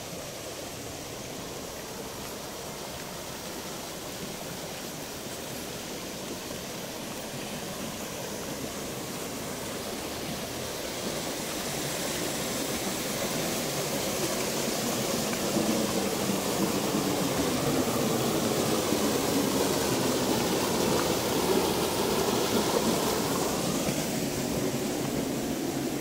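Shallow stream splashing over a small rocky cascade: a steady rush of water that grows louder about halfway through and eases slightly near the end.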